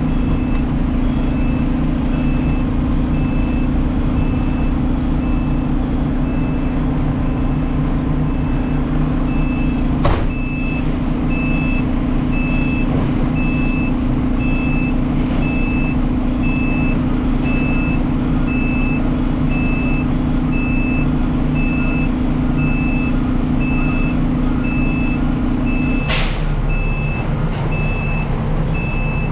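Side-load garbage truck's engine running steadily under a regular high-pitched warning beep. A short air hiss comes about ten seconds in; near the end a longer air-brake hiss, after which the engine settles lower.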